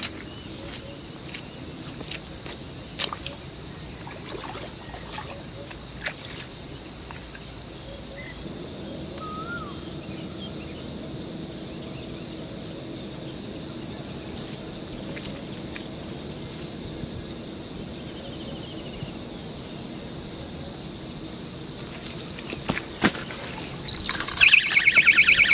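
Steady high-pitched insect drone, with a few faint clicks. Near the end a louder brief jingling rattle.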